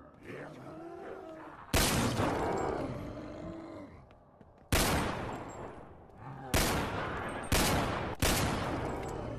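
Five loud, sudden bangs, each fading away over a second or two, with low voice-like calls between them.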